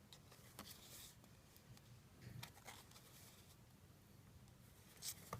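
Near silence with faint rustling and a few light clicks of trading cards being handled and flipped through, and a short swish near the end.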